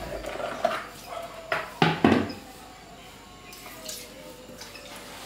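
Metal kitchenware clattering: a few sharp knocks and clinks during the first two seconds or so as a stainless steel strainer and pot are handled, then only a few faint small clicks.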